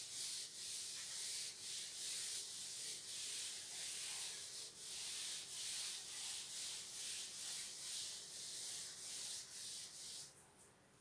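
Blackboard duster rubbed back and forth across a chalkboard, wiping off chalk writing: a run of quick scrubbing strokes, about two a second, that stops shortly before the end.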